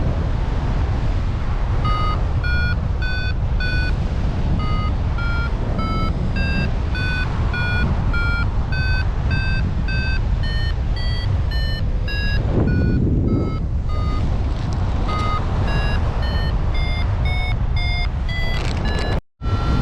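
Paragliding variometer beeping in lift: short beeps at about two a second whose pitch steps up and down with the climb rate, over heavy wind noise on the microphone. The sound drops out for a moment near the end.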